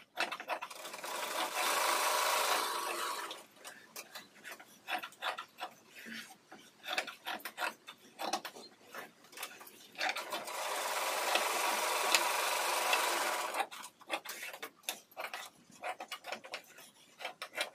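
Electric-motor-driven sewing machine running in two steady bursts of two to three seconds each, at about a second in and about ten seconds in. Between the bursts come short clicks and rustling of cloth being handled and cut with scissors.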